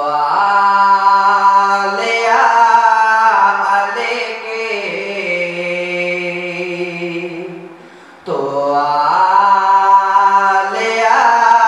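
Solo male voice reciting a noha, the Shia lament chant, into a microphone with no accompaniment: long held, wavering melodic phrases, with a short breath pause about eight seconds in before the next line begins.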